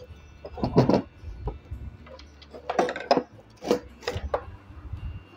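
Handling noise from a desk fan being taken apart: a handful of short knocks and scrapes of the plastic stand and metal motor housing as the motor wires are pulled out through the stand.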